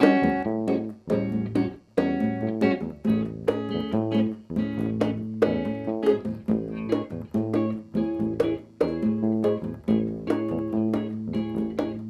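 Instrumental opening of a samba played live by a small band: electric guitar and electric bass over congas and a cymbal, with a steady, driving rhythm and no singing.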